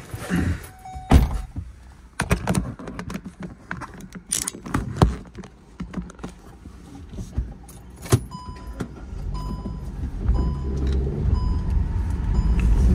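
Inside a moving car: a string of sharp clicks and knocks, then from about two-thirds of the way in a run of short electronic beeps about every two-thirds of a second, while the low engine and road rumble grows steadily louder as the car speeds up.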